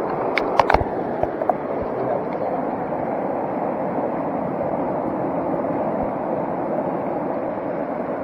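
Steady rush of flowing creek water, with a few sharp clicks between about half a second and a second and a half in.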